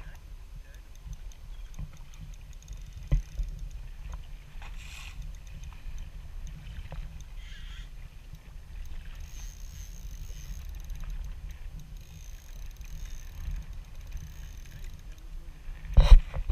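Choppy water slapping against the side of a boat under a steady low rumble, with a knock about three seconds in and louder knocks near the end.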